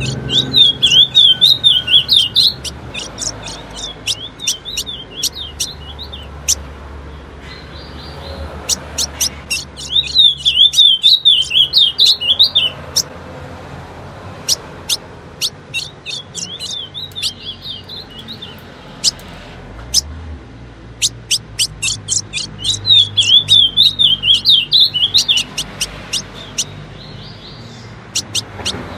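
Female ultramarine grosbeak (azulão) calling: runs of short, sharp chip notes, broken by four warbling, twittering phrases.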